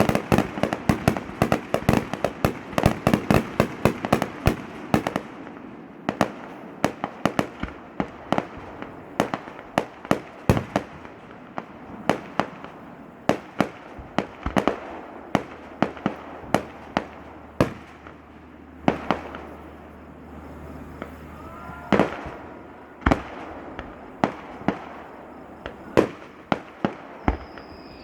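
Fireworks display: a fast volley of sharp bangs for about the first five seconds, then slower, irregular bangs and cracks, roughly one or two a second.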